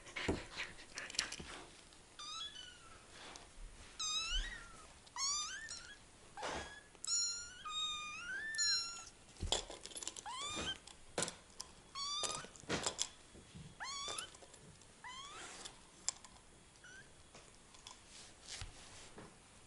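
Very young kittens mewing over and over in short, high-pitched calls that rise and fall in pitch, with a few short knocks in between.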